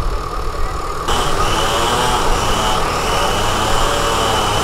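An engine idling steadily. About a second in the sound shifts, with more hiss and a thin, steady high whine added.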